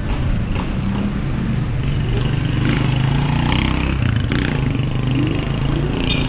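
Road traffic: a motor vehicle engine running close by with a steady low hum, and a few short clatters.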